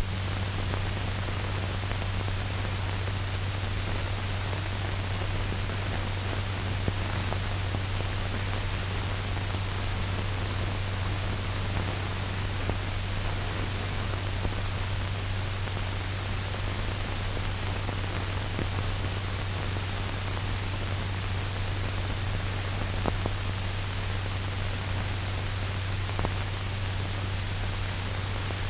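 Steady hiss and low hum of an old 1940 film soundtrack, with a few faint clicks.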